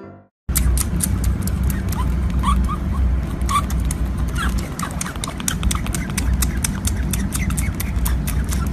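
Young animals squeaking in short high peeps over steady low rumble and many clicks of handling noise close to the microphone.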